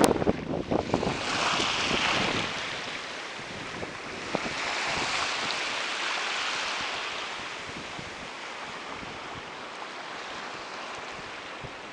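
Small waves washing up on a sandy beach, the hiss swelling and fading twice. Wind buffets the microphone in the first second.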